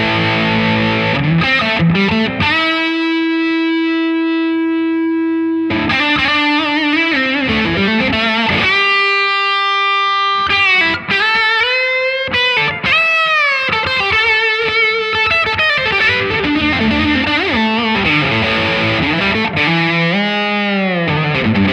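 Overdriven electric guitar lead played through a Laney Lionheart Foundry combo amp with its boost switch on, giving a compressed, driven tone. Long held notes alternate with faster phrases, string bends and vibrato, with a bend near the end.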